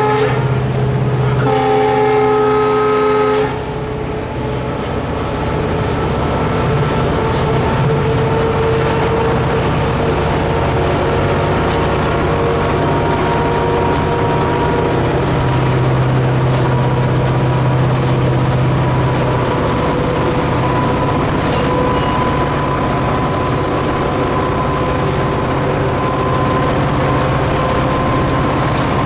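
EMD GT46MAC (WDG4D) diesel locomotive running under way, heard from inside the cab: the 16-cylinder two-stroke 710 engine gives a steady drone. The locomotive's horn sounds once for about two seconds, a couple of seconds in, and cuts off sharply.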